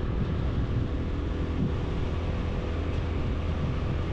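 Steady vehicle travel noise: engine and road rumble of a moving vehicle, even throughout.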